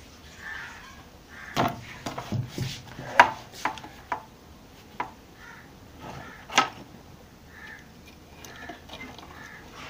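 Scattered sharp metallic clicks and snips of side-cutting pliers and wire ends being worked at a washing machine's selector switch terminals, a cluster around two to four seconds in and a single louder click past six seconds.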